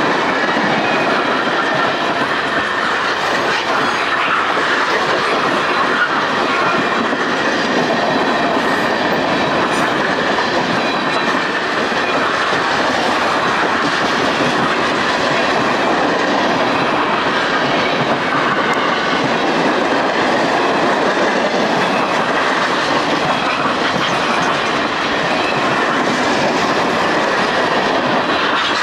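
Freight train of tank cars and covered hoppers rolling past at a steady speed, its steel wheels running on the rails with a loud, even noise that does not let up.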